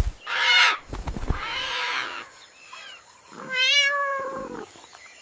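Cat meowing three times, the last meow longest and wavering in pitch.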